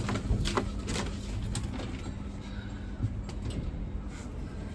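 Otis 2000 lift in use: a few clicks and knocks over the first couple of seconds and one more about three seconds in, over a steady low hum.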